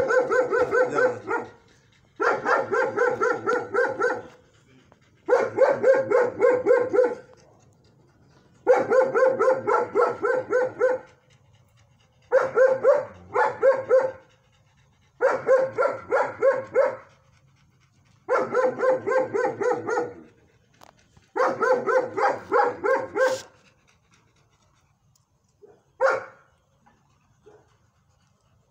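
A dog gives repeated runs of rapid short yelps, each run about two seconds long, eight runs about three seconds apart. It stops a little after twenty-three seconds, with one more short cry a couple of seconds later.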